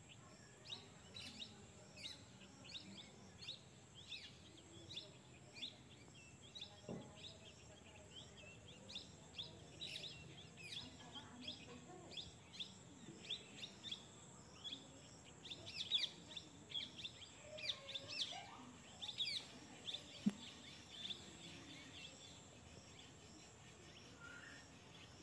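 Birds chirping: short, high calls repeated about twice a second, coming thicker and louder in the second half, over a faint steady background hiss.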